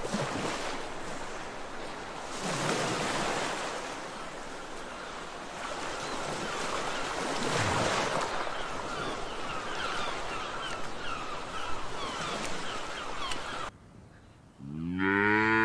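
Small waves washing up on a beach, the surf swelling twice, with faint high bird chirps now and then. Near the end the surf stops abruptly, and a cow gives one loud moo, rising in pitch.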